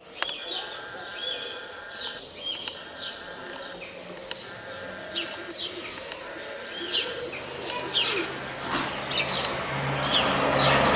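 Songbirds chirping, with short calls that sweep downward and repeat every half second or so. About eight seconds in, a steady rushing noise starts to build and grows louder, with a low hum under it near the end.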